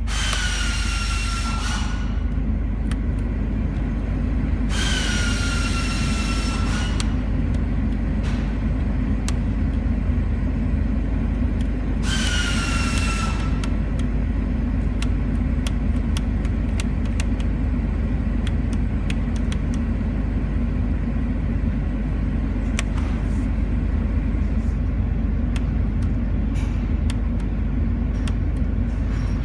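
Steady low rumble of a running car, broken three times by a couple of seconds of loud hissing with a whine that drops slightly in pitch, and scattered light clicks.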